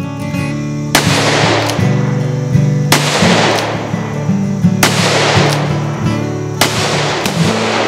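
Four shots from a Taylor's & Co. "Smoke Wagon" .45 Colt single-action revolver, about two seconds apart, each sharp crack trailing off in a long echo. Guitar music plays under them.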